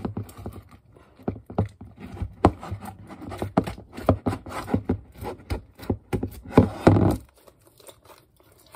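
Hands scraping and squeezing borax-activated fluffy slime off the sides of a plastic bowl: a quick run of sticky clicks and scrapes that stops about seven seconds in.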